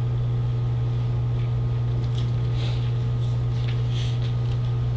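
A steady low hum with faint room noise.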